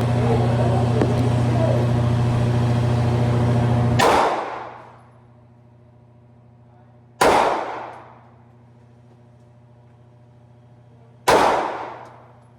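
A loud steady hum for about the first four seconds, then three gunshots roughly three to four seconds apart, each ringing out with a long echoing decay in an indoor shooting range.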